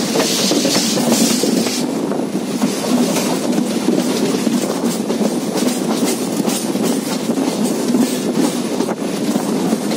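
Passenger train running, heard from its open door: a steady rumble of the wheels on the rails, with irregular clatter as they pass over rail joints and points.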